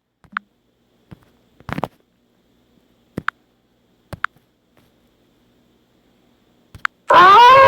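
Mostly silence, broken by a handful of brief chirps and clicks. Near the end a wolf howl begins, rising in pitch and then holding one steady note.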